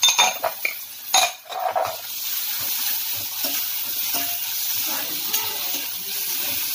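A metal ladle scraping and clanking against a metal kadhai while vegetables are stirred, loudest in the first second and a half. After that comes a steady sizzle of onion, garlic and tomato frying in ghee, with light scrapes.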